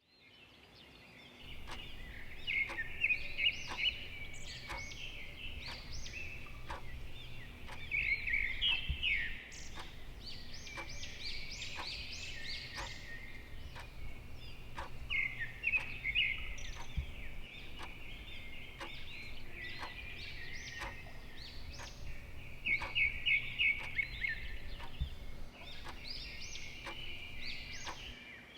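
Birds calling: bursts of rapid, high-pitched chattering trills that repeat every few seconds.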